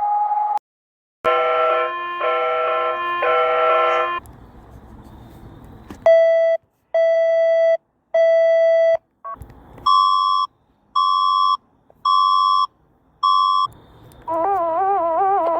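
A run of different electronic emergency-alert tones: three pulsed chords of several tones together, then three lower beeps, four higher beeps, and near the end a warbling multi-tone alarm.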